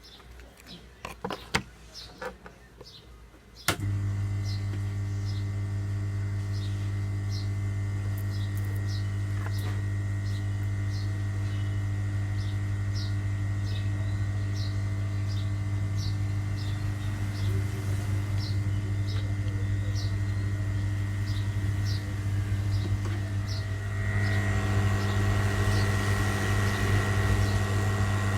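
A few clicks, then a hot-air rework station switching on: a steady electrical hum with its fan, which gets louder about twenty-four seconds in.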